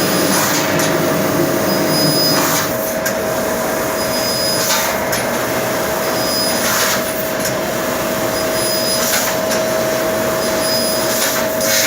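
1500 W fiber laser cutting machine running: a steady machine hiss with a held mid-pitched tone, and brief louder bursts of hiss about every two seconds.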